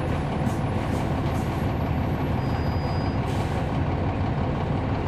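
Cummins ISL9 diesel engine of a 2011 NABI 40-SFW transit bus running steadily, heard from inside the bus as a low, even drone.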